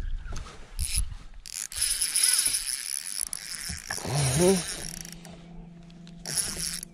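Fishing reel drag clicking as a hooked largemouth bass runs and pulls line off against a loosely set drag, in several spurts, the longest about a second and a half in. A brief wordless exclamation breaks in about four seconds in.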